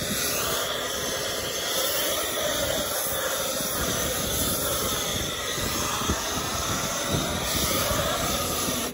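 Pressure washer foam cannon spraying thick foam: a steady, loud hiss of the spray with the machine running under it, cutting off sharply at the very end.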